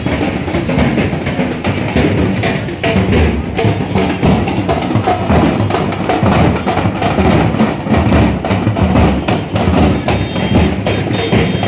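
Several large bass drums beaten with sticks, keeping up a dense, continuous rhythm.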